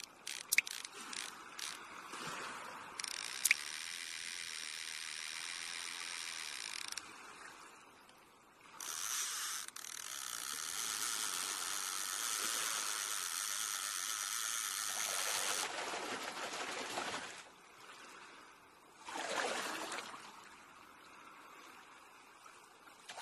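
Fishing-reel sound effects: a run of clicks, then the reel's ratchet buzzing in two long stretches as line runs off, followed by a falling swish and a short whoosh near the end.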